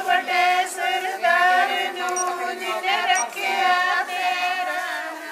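A small group of women singing together without instruments, a traditional folk song with a chant-like melody.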